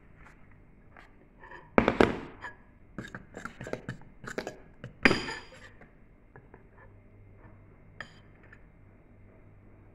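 Glass mixing bowl of pancake batter clinking and knocking: a loud cluster of knocks about two seconds in, smaller clinks through the middle, and one ringing clink about five seconds in.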